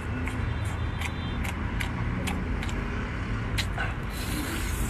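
A steady low engine-like rumble, with irregular sharp clicks and smacks from eating seafood off a skewer.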